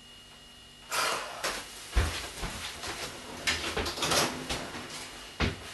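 A door opened and shut with a heavy thump about two seconds in, among a run of knocks and clatters.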